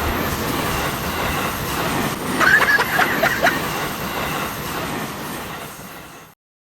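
A train running past: a steady rumble of wheels on rail, with short high-pitched wheel squeals between about two and a half and three and a half seconds in. It then fades and cuts off abruptly near the end.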